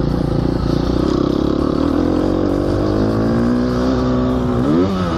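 Gas Gas motocross bike with an Akrapovič exhaust, its engine pulling hard on a dirt track. The pitch holds, climbs steadily through the middle, then jumps up and falls sharply near the end.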